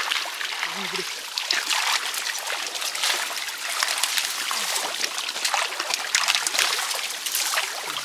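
Water splashing and trickling as people wade through shallow river water and work a fishing net among bankside plants, with many small splashes one after another.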